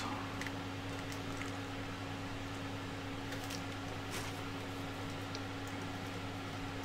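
Steady low electrical or fan hum of the room, with a few faint, scattered clicks from a 3D-printed plastic part and small hardware being handled.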